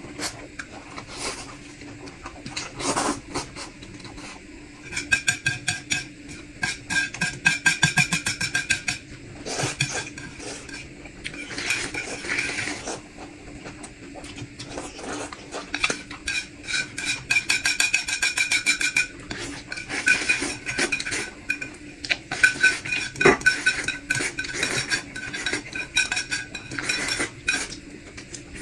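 Eating utensils scraping and clinking against a bowl in quick runs of strokes, the bowl ringing with each run.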